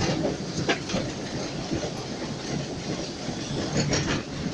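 Running noise of a Kp4 narrow-gauge steam locomotive under way, heard in its cab: a steady rumble with a couple of sharp knocks.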